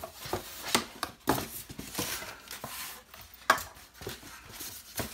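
Handling noise as a polystyrene foam packing insert is pulled away from a W-King D8 portable speaker on a tabletop: rustling and squeaky scraping foam with irregular clicks and knocks, the loudest a sharp knock about three and a half seconds in.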